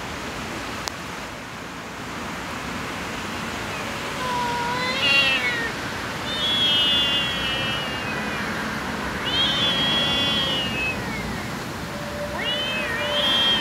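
Young tabby-and-white kitten meowing four times, high-pitched calls that sag in pitch at their ends, with the second and third drawn out longer.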